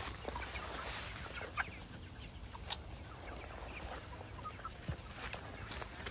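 Loose chickens clucking softly, a few short, scattered calls over a low steady rumble, with one sharp click a little under three seconds in.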